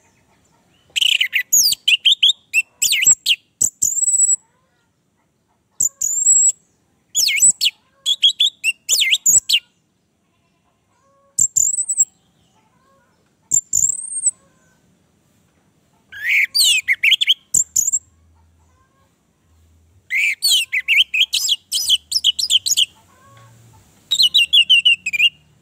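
Orange-headed thrush (anis merah) singing in about eight short bursts of fast, rich warbling, mixed with high clear whistled notes, with pauses of a second or two between bursts.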